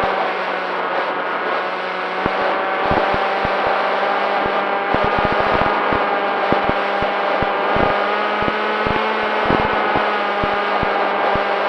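Electric motor and pusher propeller of an FX-61 flying-wing model plane running at a steady pitch, with wind buffeting the microphone in irregular low thumps.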